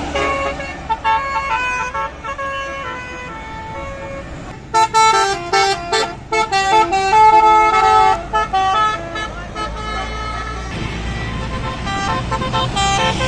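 Bus telolet horn playing a quick tune of stepping notes, loudest from about five to eight seconds in, over a steady low engine hum.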